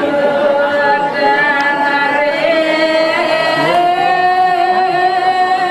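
A voice singing a slow Balinese ceremonial chant in long, drawn-out held notes, sliding up to a higher held note partway through.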